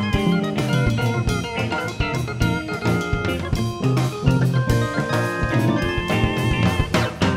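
Background music with guitar and a drum kit keeping a steady beat.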